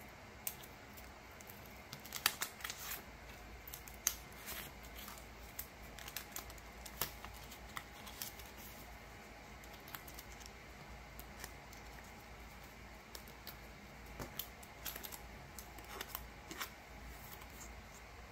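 Irregular light clicks and short scrapes of photocards and plastic binder sleeves being handled, the cards slid in and pages handled, thicker near the start and again near the end.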